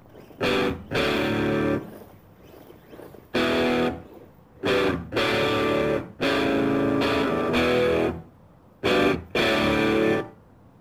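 Rock music: distorted electric guitar chords played in loud stop-start blasts, each about half a second to two seconds long, with short gaps between them.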